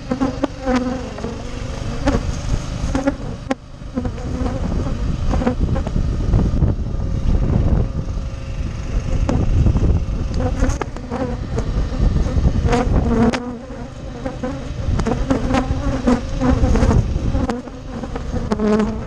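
Honey bees buzzing as they fly close past the microphone, the buzz swelling and fading again and again, over a steady low rumble and a few light clicks.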